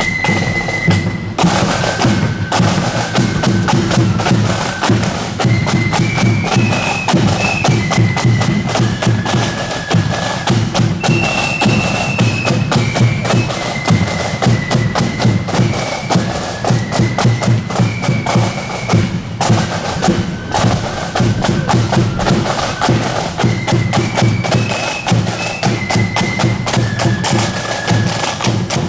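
Marching flute band playing a tune: flutes carrying the melody over rapid snare drumming and bass drum beats.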